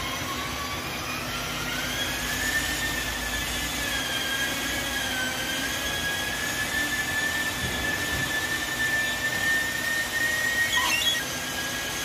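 Electric motor whine of a workshop machine, rising in pitch over the first couple of seconds as it spins up, then running at a steady high pitch.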